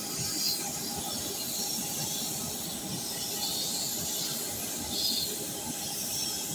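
Steady whine and hiss of airliner turbines running on an airport apron, with a few thin steady tones over the noise.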